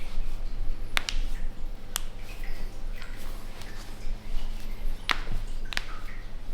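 Four sharp clicks, the first two about a second apart and the last two close together near the end, over a steady low hum.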